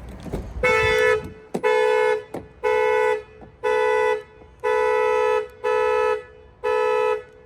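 Vehicle anti-theft alarm sounding the car horn in repeated steady honks, about one a second, starting about half a second in; set off by getting into the locked vehicle, and it won't turn off.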